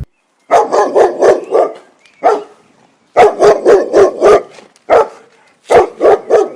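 Dog barking: quick barks in three runs of about four to six each, with short pauses between.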